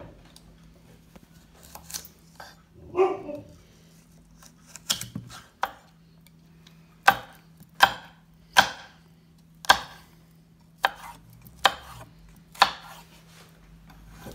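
Kitchen knife chopping cucumber into thin battens on a wooden chopping board: about ten single sharp chops, irregular at first, then roughly one a second through the second half.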